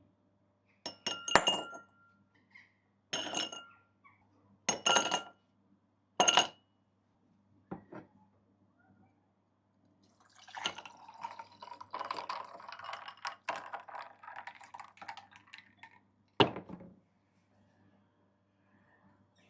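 A drinking glass being filled with home-made cold tea. Several sharp clinks come in the first few seconds, then liquid pours into the glass for about five seconds, and a single knock sounds near the end.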